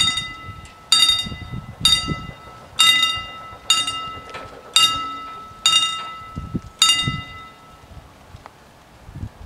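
A level-crossing warning bell strikes about once a second, each stroke ringing on and fading, while the barriers are lowered to warn of an approaching train. It stops about seven seconds in, once the barriers are down.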